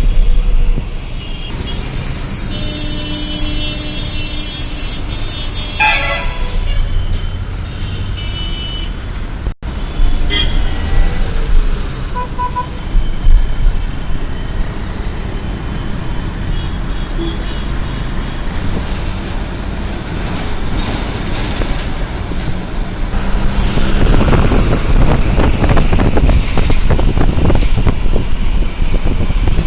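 Busy road traffic with engines running, tyre noise and several vehicle horns honking in the first few seconds, then a louder rush of passing traffic near the end.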